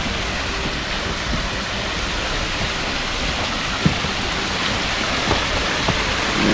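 Waterfall water falling and rushing in a steady, even hiss like heavy rain, with one sharp tick about four seconds in.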